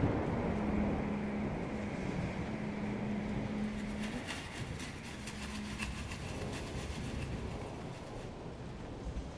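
Rain falling, with the long low rumble of thunder slowly dying away and a steady low hum in the first few seconds. From about four seconds in, crisp crackling ticks of drops come through the rain.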